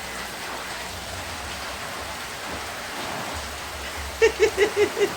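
Steady hiss of rain falling. Near the end, a person's voice gives about six quick, short pitched notes in a row, louder than the rain.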